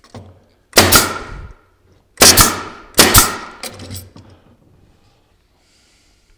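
Pneumatic nail gun firing into particleboard stretcher pieces: six sharp shots in three quick pairs, each trailing off briefly.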